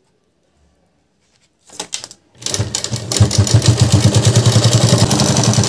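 Near silence for about the first second and a half, then a sewing machine starts up and runs fast and steady, stitching a seam along the edge of the bag.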